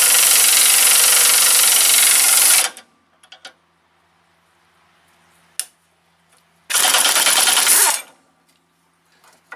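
Pneumatic impact wrench hammering as it drives the screw of a C-frame ball joint press, pushing the old, rusted lower ball joint out of the lower control arm. One long burst stops about two and a half seconds in; after a pause with a sharp click, a second burst of about a second follows.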